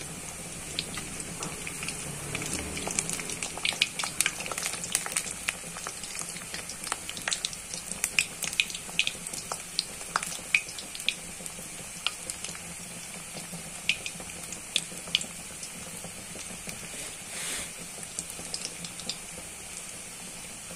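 Breadcrumb-coated paneer cutlets deep-frying in hot oil: a steady sizzle with frequent sharp crackles and pops, thinning out in the second half.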